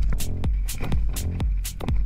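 Electronic dance music with a steady beat, heavy bass under sharp hi-hat ticks about twice a second.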